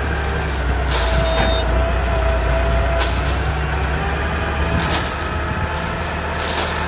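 A self-loading concrete mixer's engine running steadily, with sharp knocks or clatter about every one and a half to two seconds and a thin whine from about a second in.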